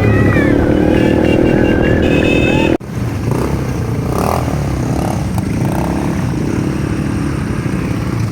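A song with singing plays and is cut off suddenly about three seconds in. Then an ATV engine runs steadily, with voices faintly over it.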